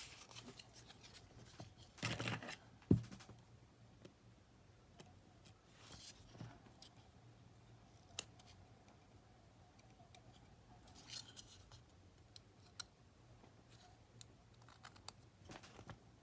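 Scattered small clicks and short scrapes of small plastic and metal parts being handled and fitted together while a cassette Walkman's battery box is reassembled, with one sharper click about 3 s in and another about 8 s in.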